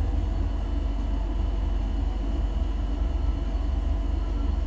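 Steady low rumble with a faint even hum above it, unchanging throughout, with no speech.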